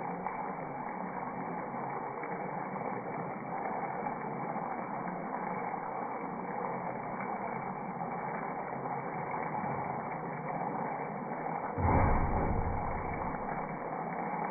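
Steady simmering hiss from julienned potatoes cooking in spiced liquid in a glass-lidded pan on the stove. About 12 s in comes a loud low bump as the lid is lifted off, and the simmering then carries on.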